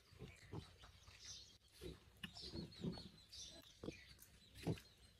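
Farm animals making short, low calls, about nine of them at irregular intervals.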